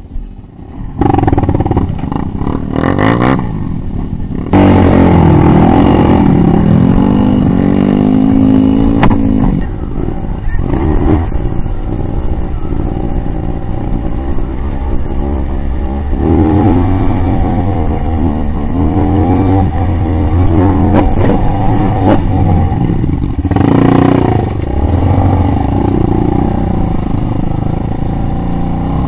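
Dirt bike engine heard close up from the bike while riding a muddy trail, revving up and down with the throttle, with a surge of revs about four and a half seconds in.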